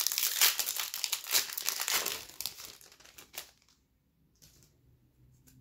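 A Topps Pro Debut baseball card pack's wrapper crinkling and tearing as it is ripped open by hand, for about three and a half seconds, then dying away to a faint rustle of the cards being handled.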